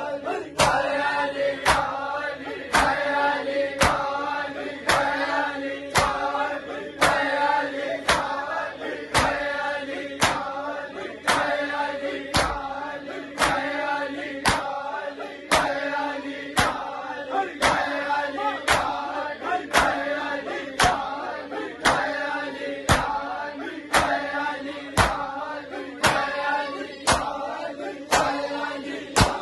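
A group of men chanting a nauha lament in unison, with sharp hand-on-chest strikes (matam) keeping a steady beat under the voices.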